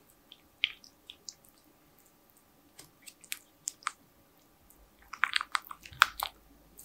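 Silicone spatula stirring pieces of pink chocolate into warm cream in a glass bowl to melt them into ganache: scattered soft clicks and scrapes against the glass, busiest near the end.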